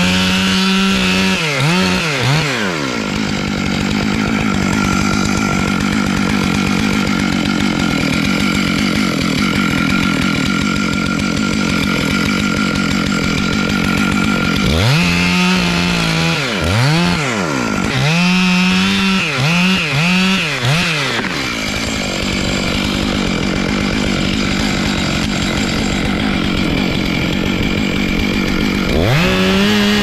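Large two-stroke chainsaw cutting through the trunk of a big poplar. It is blipped in quick revs at the start, settles to a steady, loaded note while the chain is in the cut, revs in quick bursts again about halfway through, then cuts steadily before revving again near the end.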